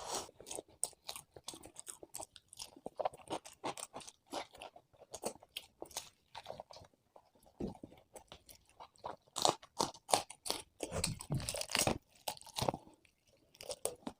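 A person eating close to the microphone: an irregular run of crisp crunching bites and chewing, loudest in a cluster after about nine seconds.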